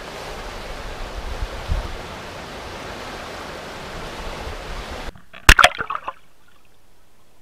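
Steady rushing of a fast-flowing river, which cuts off abruptly after about five seconds to a muffled quiet as the underwater camera goes in, with a few sharp knocks from the camera about half a second later.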